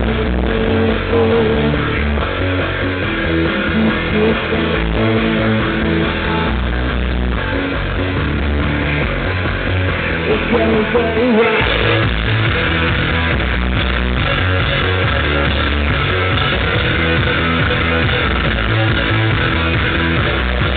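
Live rock band playing loud, with drums and guitar. About halfway through the low end drops out for a moment, then the band comes back in fuller and brighter.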